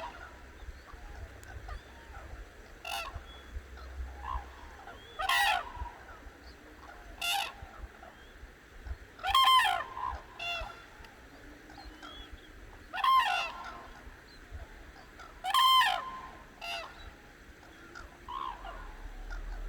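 Cranes calling: loud, clear calls rich in overtones come every two or three seconds, several in quick pairs, with fainter calls in between.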